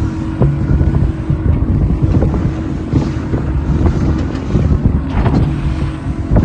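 Small boat's engine running steadily under way, a constant hum, with wind buffeting the microphone.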